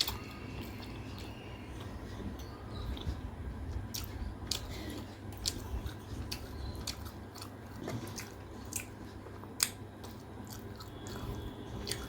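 Close-miked mouth sounds of someone eating: soft, wet chewing with scattered small clicks.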